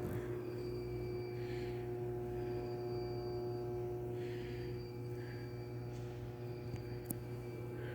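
Steady electrical hum with a faint high-pitched tone that comes and goes about every two seconds.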